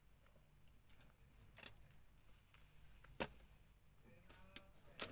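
Quiet mouth noises of someone eating a chicken sandwich: four sharp clicks and smacks while chewing, the loudest about three seconds in, over near silence.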